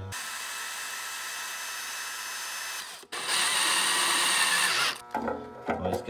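Power drill boring holes in PVC pipe: it runs steadily for about three seconds, stops briefly, then runs louder for about two seconds as the bit cuts through the plastic.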